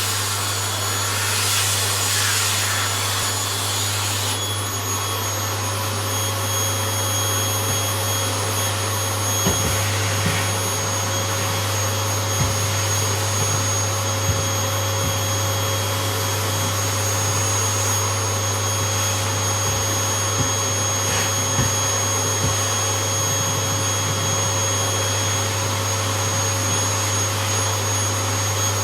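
Household vacuum cleaner running steadily, a motor hum with a high whine. In the first few seconds there is a louder rushing hiss of suction, and the steady hum is broken later by occasional soft knocks.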